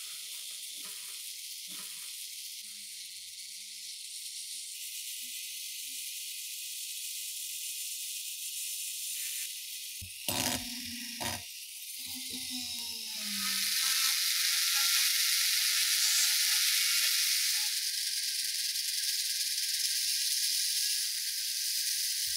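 Rotary tool spinning a small wire wheel that brushes rust off steel rifle parts: a steady high scratching hiss. About halfway through there are a few sharp knocks, and after them the brushing grows louder as the wheel works along a coil spring.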